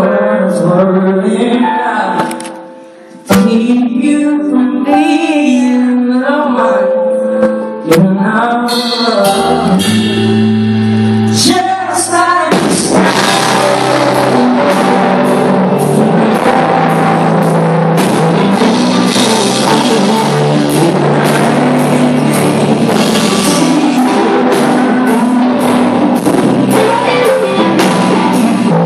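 Live band performance: a male singer's voice over electric guitar, with the full band and drums coming in about twelve seconds in and keeping a steady beat from there on.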